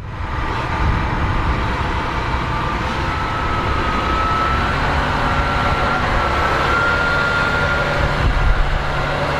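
John Deere 9RX 830 tractor's big diesel engine running steadily under load, with a thin whine that slowly rises in pitch.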